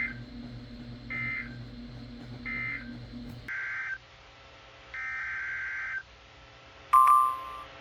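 Emergency Alert System SAME data bursts, the warbling two-tone digital code of a broadcast alert: three short bursts, the end-of-message code closing the severe thunderstorm warning, over a low hum that cuts off abruptly about three and a half seconds in. Two more data bursts follow, the second about a second long, then a sudden loud beep-like tone near the end.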